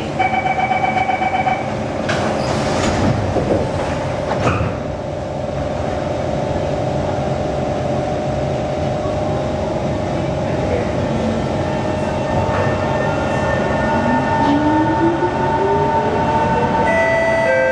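SMRT C151 metro train: the door-closing warning beeps sound rapidly, the doors slide shut with a couple of knocks, and the train pulls away, its traction motors whining and rising in pitch as it accelerates.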